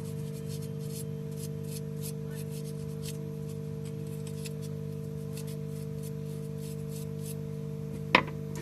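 Faint scratchy rubbing strokes as the mobile phone's circuit board is scrubbed clean where the charging socket was removed, over a steady electrical hum, with one sharp click near the end.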